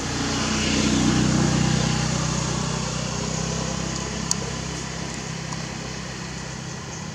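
A motor vehicle passing by, its engine hum swelling about a second in and then slowly fading away. A single sharp click about four seconds in.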